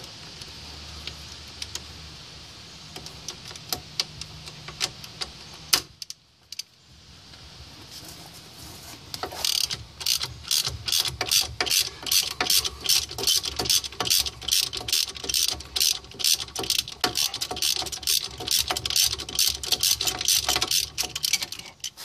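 Ratchet wrench with a 13 mm socket on an extension clicking rapidly and evenly, starting about nine seconds in, as it turns out a hub assembly mounting bolt on a 2006 Chevy Uplander's front knuckle. Before that, a steady low hum with a few scattered clicks.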